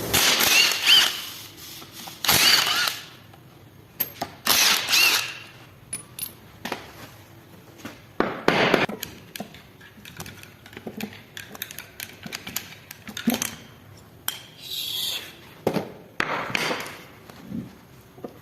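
Metal parts and hand tools on a Land Rover Defender transfer case being dismantled: irregular clinks, knocks and scrapes in bursts with short pauses between, a few of the scrapes giving a brief high metallic ring.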